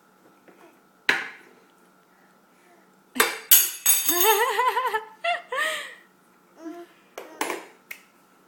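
Metal cutlery thrown down onto a hard surface, clattering about a second in and again, louder, around three seconds in. A baby's high, wavering squeals follow, with another clatter near the end.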